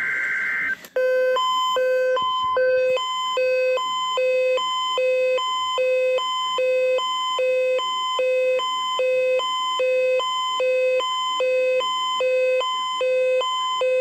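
First Alert emergency alert radio sounding its alarm for a received test tornado alert: a low beep and a higher beep alternating, about one beep every three-quarters of a second. A steady tone cuts off just before the beeping starts, about a second in.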